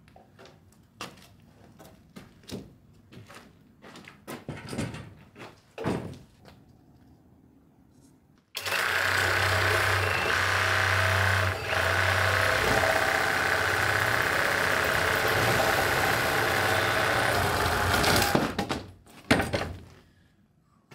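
A few wooden knocks and clunks, then a handheld electric power saw starts about eight seconds in and runs steadily for about ten seconds, cutting through a wooden plank, before stopping. A couple of sharp knocks follow near the end.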